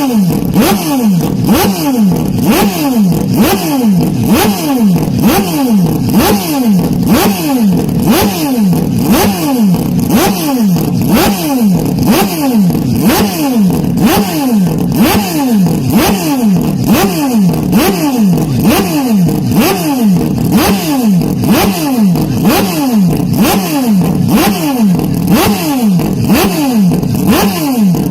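Motocross bike engines revving hard, the pitch sweeping up and falling away again over and over, about once or twice a second, as the throttle is opened and chopped around the track.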